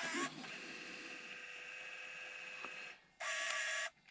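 Panasonic PV-DV900 MiniDV camcorder's tape transport rewinding the cassette: a steady motor whir with a thin high whine. It is followed near the end by two short, louder bursts of mechanism noise as the transport changes mode.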